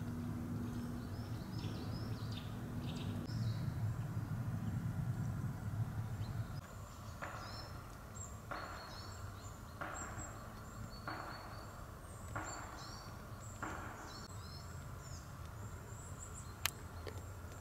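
Forest ambience with small birds chirping. A low, distant rumble runs for about the first six seconds and then drops away. Midway come six evenly spaced rasping sounds, a little over a second apart, and there is one sharp click near the end.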